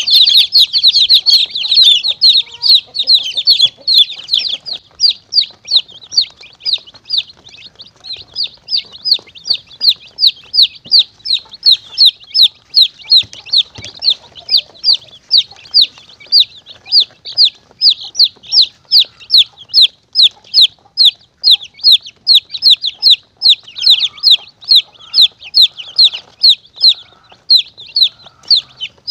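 Baby chicks peeping: short, high, falling peeps, several overlapping in the first few seconds, then a steady run of about two or three a second. A chick-distress recording played as a lure call to draw monitor lizards and mongooses.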